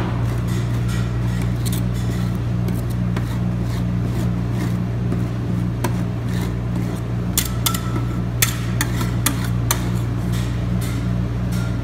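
Metal spatulas tapping and scraping on the frozen steel plate of a rolled-ice-cream machine, with a run of sharper clicks in the second half, over a steady low machine hum.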